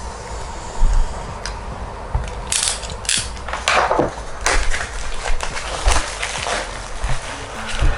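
Cardboard product box being opened and handled, with irregular scraping, tearing and crinkling of the packaging, mixed with sharp clicks and knocks.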